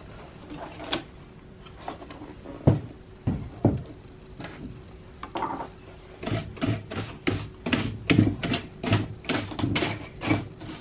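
Olympia Deluxe manual typewriter being typed on, its hinges freshly oiled: a few separate key strikes, then about halfway through a quick run of keystrokes at roughly three to four a second.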